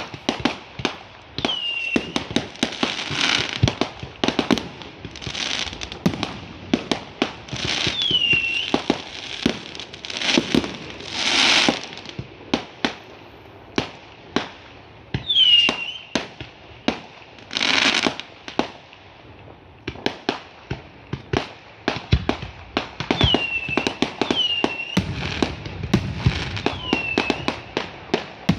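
Fireworks going off: a rapid run of sharp bangs, crackling hisses lasting a second or two, and several short whistles that fall in pitch.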